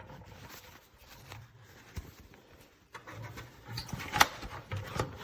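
Handling noises from a replacement bag and the bag compartment of a bagged upright vacuum: scattered clicks and knocks, loudest about four seconds in.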